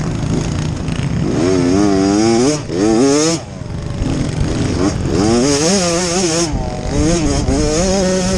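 Small off-road dirt bike engines racing, their pitch rising and falling as the riders rev and shift, with more than one engine heard at once toward the middle.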